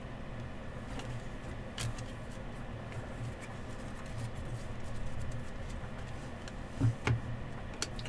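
Trading cards being handled and flipped through: a few light clicks and a soft thump over a low steady hum.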